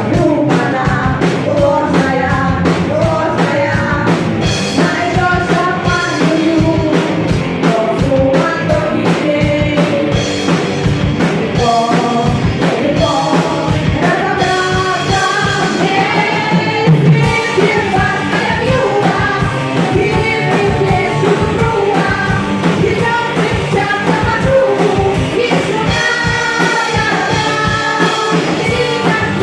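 A live band playing an upbeat rock-and-roll arrangement: female voices singing over electric guitars, bayan and a drum kit keeping a steady beat.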